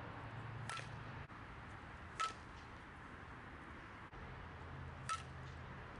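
A fastpitch softball bat striking the ball three times, each a sharp crack with a short ringing ping; the second and third hits are the loudest.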